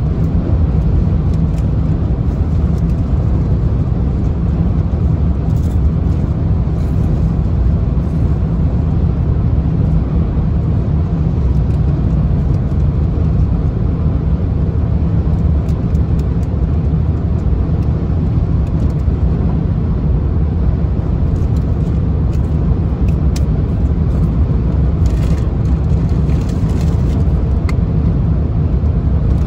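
Steady low rumble of a car travelling at highway speed: tyre and engine noise on the road.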